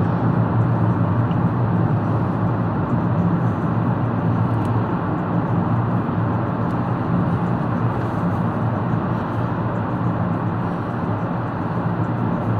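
Car driving at speed through a long rock road tunnel, heard from inside the cabin: a steady road and engine drone with a low hum.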